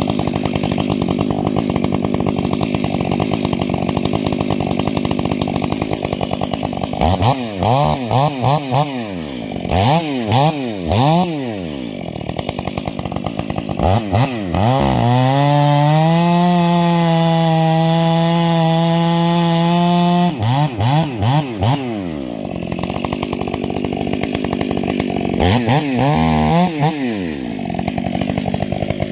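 Stihl 500i fuel-injected two-stroke chainsaw with an 8-pin sprocket, cutting firewood. It runs steadily under load at first, then its revs swing up and down several times, with a stretch of held high revs in the middle.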